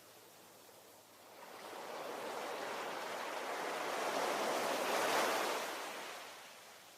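Ocean wave: after a lull, the surf swells for a few seconds, peaks, then washes out and fades.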